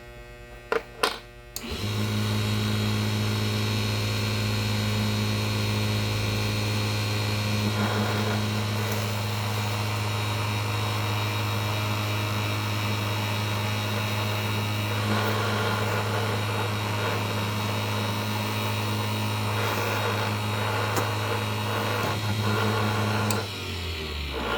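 Small clockmaker's lathe: a couple of clicks, then its motor starts about two seconds in and runs with a steady hum while a clock arbor's pivot is polished against it, adding a scratchy rubbing noise. Near the end the motor is switched off and winds down, its hum falling in pitch.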